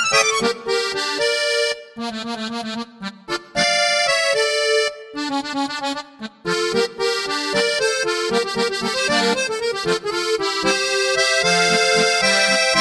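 Background music: an accordion waltz in D minor, a melody over chords.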